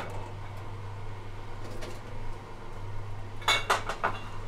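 Reverse vending machine's conveyor drive humming steadily while a returned glass bottle is carried out on the belt. About three and a half seconds in, the glass bottle clinks and knocks several times in quick succession.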